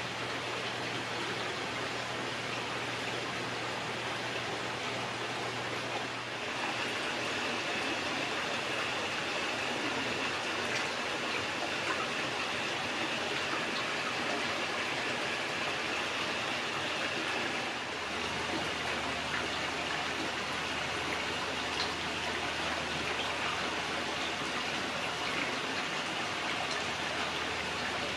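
Hot-spring water pouring from a bamboo spout into a stone outdoor bath: a steady splashing trickle, its sound shifting slightly about six seconds in and again past halfway.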